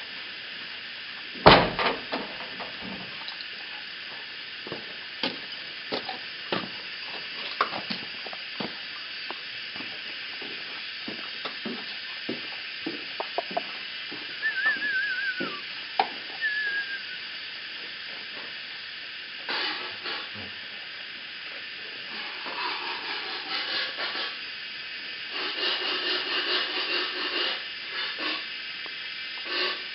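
A dog crunching dry kibble: scattered crisp clicks over a steady hiss. One loud knock comes about a second and a half in, and a brief warbling whistle sounds around the middle.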